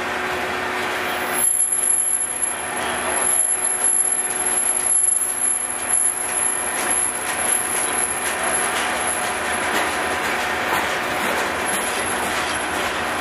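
Freight train of covered hopper cars rolling past, a steady rumble and clatter of steel wheels on rail.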